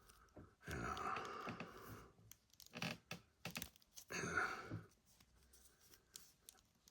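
Faint rustling and scattered clicks from a plastic action figure being handled and posed, its joints being moved.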